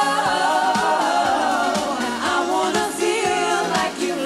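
Live pop music on stage: singing over a steady kick-drum beat of about two beats a second.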